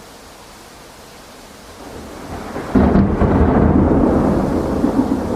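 Storm noise: a faint steady hiss swells from about two seconds in into a loud, rumbling rush of heavy rain and water that sets in sharply just before three seconds and holds.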